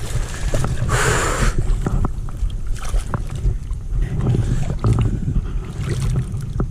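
Wind on the microphone, with small splashes and sloshing as a landed golden trevally is handled in shallow water at the shore. There is a brief louder rush of splashing about a second in.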